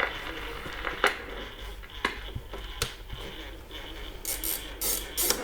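Audiosonic CL205 flip clock radio being handled: a few sharp mechanical clicks about a second apart, then short, repeated hissy bursts near the end.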